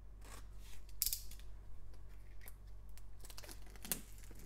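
Utility knife slicing through the plastic shrink wrap on a trading-card box, with a sharp scrape about a second in, then the loosened wrap crinkling as it is pulled off near the end.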